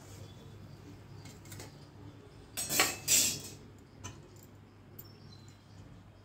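Steel kitchen utensils clattering in two short bursts, a little under three seconds in.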